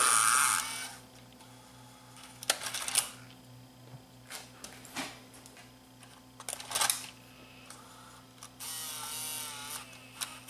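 Sony EV-C3 8mm VCR's front-loading cassette mechanism working on eject. A brief motor whirr at the start is followed by several mechanical clicks and clunks, and near the end a motor whirs again for under two seconds with a wavering whine.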